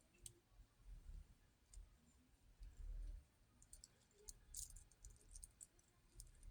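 Faint, irregular light clicks with low bumps in between: a metal wristwatch being handled and turned.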